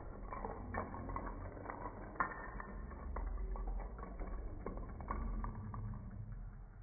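A chain of coloured dominoes toppling, a quick run of irregular clacks as each block knocks over the next. The clacks thin out and stop near the end.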